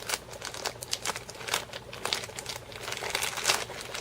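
Plastic packaging crinkling as it is handled and unwrapped: a dense run of irregular crackles.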